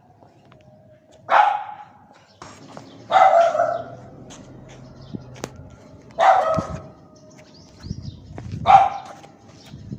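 A dog barking: four single loud barks spaced about two to three seconds apart.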